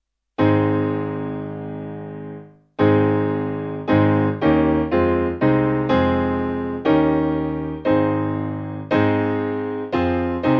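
Slow solo piano music. A chord sounds about half a second in and is held until it breaks off near three seconds, then a run of struck chords follows, each one fading before the next.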